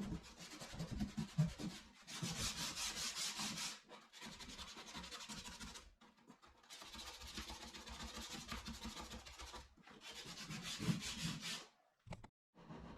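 Sandpaper rubbed back and forth by hand on a wooden dresser, working into corners its round orbital sander cannot reach. It goes in quick, even strokes, in about five runs with short pauses between them.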